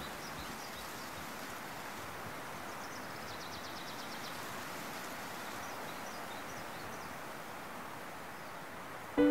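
Steady outdoor background noise in a park, with a faint, quick bird trill about three seconds in and a few scattered faint chirps.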